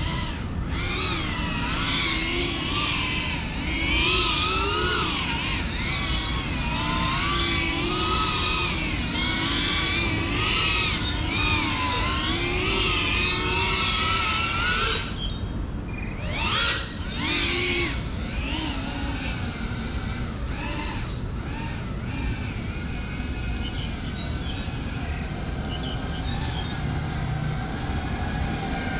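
GepRC CineLog35 FPV quadcopter's motors and propellers whining as it flies, the pitch rising and falling continuously with the pilot's throttle. Near the middle the whine drops out almost completely for a moment, then comes back in a few quick surges before settling into a steadier, softer hum.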